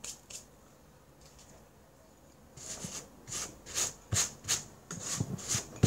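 Floury hands rubbing in quick, scratchy strokes, about two or three a second, starting about halfway through. A sharp knock comes at the very end.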